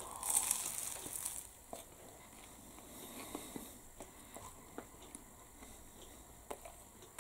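Crisp, flaky pastry of a warmed sausage roll crackling under a bite for the first second or so, then quiet chewing with small scattered clicks.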